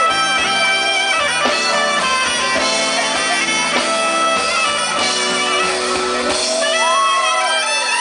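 Soprano saxophone playing long held notes over a live band with drums, bass and keys. About six and a half seconds in the band drops out, the saxophone carries on, and the crowd begins cheering and whooping.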